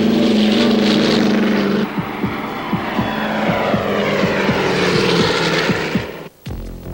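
Loud engine-like roar used as a cartoon sound effect. It holds a steady hum for about two seconds, then runs into a series of quick falling pitch sweeps, and cuts off sharply near the end.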